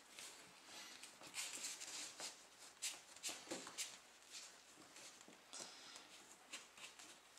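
Faint, irregular rustling and scraping of a thin cord being drawn through and snugged into a prusik knot around a twisted rope.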